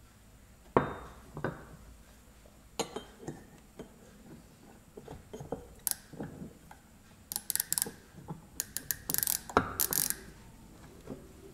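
Hardened steel parts knocked down on a wooden bench, the sharpest knock about a second in. Then a micrometer's ratchet thimble clicks in quick runs as it is spun shut on a ground steel block to take a measurement.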